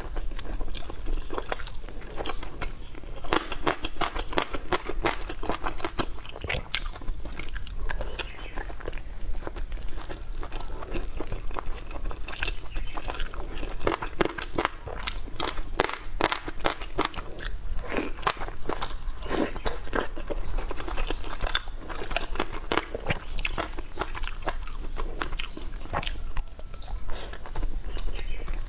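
A person chewing baozi (steamed buns) and pickled dried radish close to the microphone, with frequent crisp crunches and clicks.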